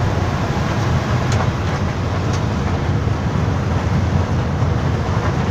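Steady low rumble of a moving intercity bus heard from inside its cabin: engine and road noise, with a couple of faint clicks or rattles about a second and two seconds in.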